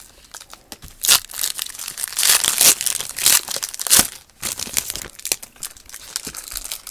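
Foil wrapper of a football trading-card pack crinkling and tearing as the pack is ripped open by hand, in irregular crackles that are loudest from about one to four seconds in.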